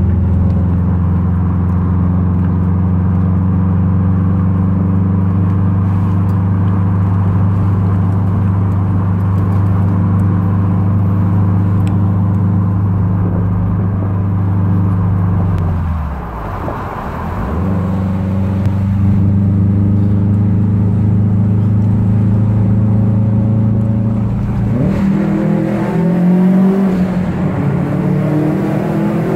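Subaru Forester XT's turbocharged flat-four engine running at a steady pitch with road noise inside the cabin. About halfway through the engine note drops away and climbs back, and near the end it rises as the car accelerates.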